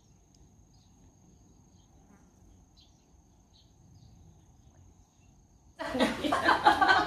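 Faint, steady high-pitched trill of a cricket over a quiet outdoor background, with a few tiny chirps. Near the end it cuts off abruptly to louder voices talking.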